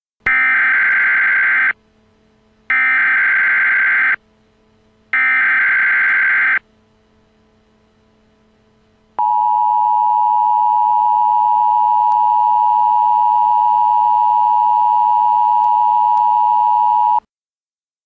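Emergency Alert System header: three bursts of digital SAME data tones, each about a second and a half long with short gaps between them. After a pause comes the steady EAS two-tone attention signal, which holds for about eight seconds and then cuts off abruptly.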